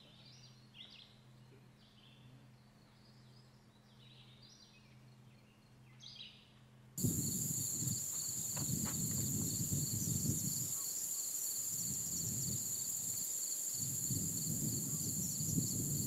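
Faint bird song, short phrases of clear high notes every second or two, over a low hum. About seven seconds in, it cuts to a much louder, steady high-pitched insect drone with gusts of low wind rumble on the microphone.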